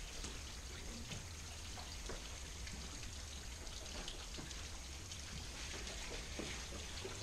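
Faint water trickling and dripping down wet rock, with many small scattered ticks over a steady low rumble.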